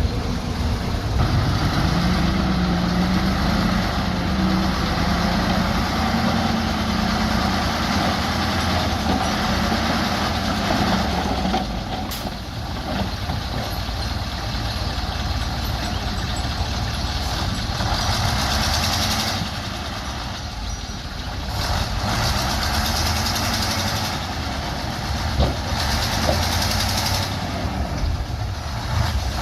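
Bulldozer's diesel engine working, its pitch rising in the first few seconds and then varying, with a hiss that comes and goes in the second half.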